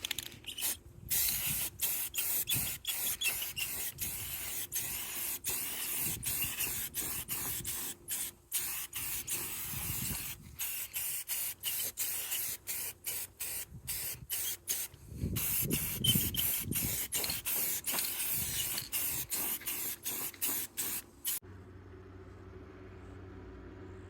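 Hissing spray, switched on and off in many short spurts. Near the end it stops and a steady low hum takes over.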